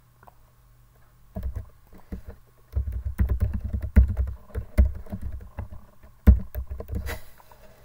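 Typing on a computer keyboard: a quick run of key clicks that starts about a second and a half in and stops shortly before the end, with a couple of louder key strikes among them.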